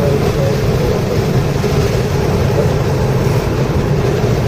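2010 Subaru WRX's turbocharged flat-four engine running steadily, heard from inside the car at speed.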